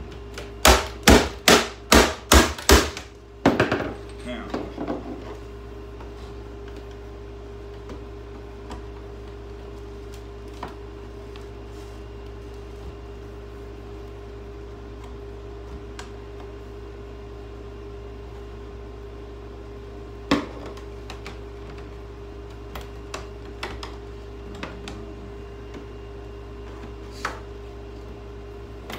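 A quick run of seven hard hammer-like blows, about three a second, against a part of a scrapped refrigerator that is stuck, then a louder knock and a few lighter knocks. After that a steady hum carries on with faint ticks, and there is one more sharp knock about twenty seconds in.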